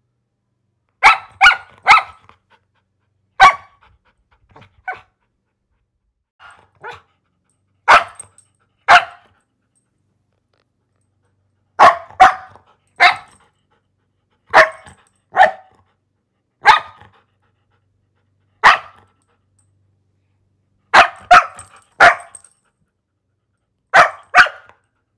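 A dog barking in short groups of one to three sharp barks, separated by silent gaps of one to three seconds. A few quieter barks come between about four and seven seconds in.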